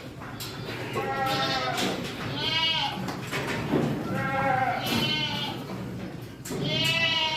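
Saanen goat kids bleating, about five high, quavering bleats in quick succession, some overlapping.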